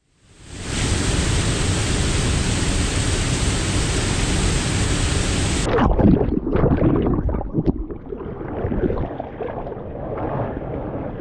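Rushing river water, a loud steady hiss. About six seconds in it abruptly turns muffled, with gurgling and bubbling as the microphone goes under the water.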